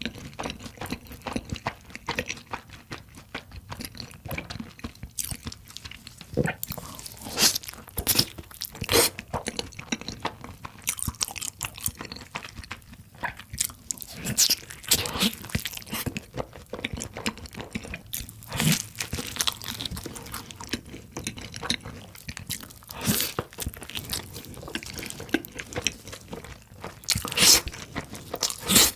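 Close-up eating sounds: crisp, crunching bites and chewing of pizza and mac and cheese, in irregular bursts with softer chewing between; the loudest crunches come near the end.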